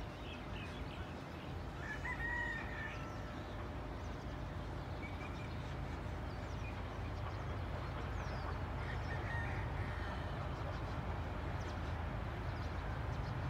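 A rooster crowing about two seconds in, with a fainter call later, over a low steady rumble that slowly grows louder.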